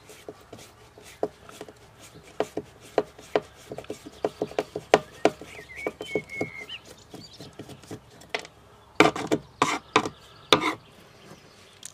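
Hand screwdriver backing screws out of a fibreglass boat deck: irregular scraping and small clicks as the blade turns and grinds in the screw head, with a few louder knocks near the end.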